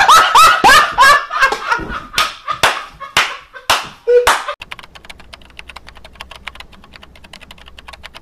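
A chicken clucking and cackling loudly, a quick string of about a dozen sharp calls, each falling in pitch. After about four and a half seconds they stop and give way to a fast run of faint clicks like typing, over a low hum.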